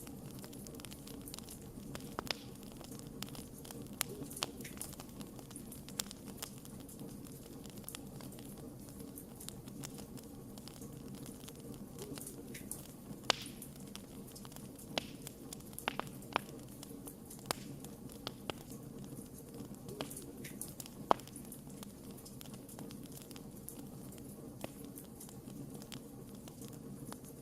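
Wood fire burning in a fireplace: a steady low rush under irregular sharp crackles and pops from the burning logs, a few of them much louder than the rest.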